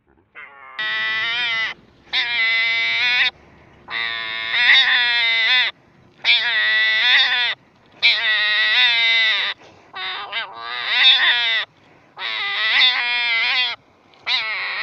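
A hedgehog crying out while prodded with a stick: about eight loud, wavering, bleat-like cries, each about a second long, with short breaths between them. These are distress cries.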